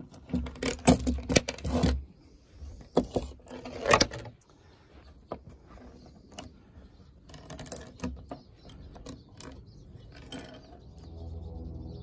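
Steel chainsaw chain rattling and clinking as it is handled and worked around a guide bar, a clattering of metal links. It is loudest in the first two seconds and again about four seconds in, then goes on as lighter, scattered clicks.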